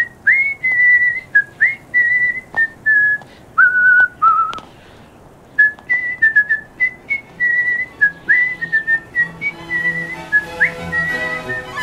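A person whistling a melody, each note scooping up into its pitch, with a brief pause about five seconds in. Music comes in softly underneath near the end.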